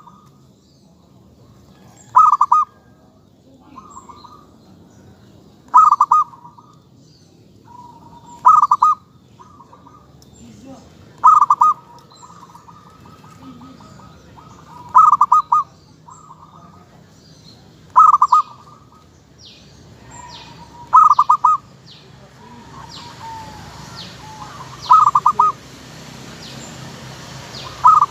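Zebra dove (perkutut) cooing: a short, quick rippling phrase repeated about every three seconds, with softer coos between the phrases.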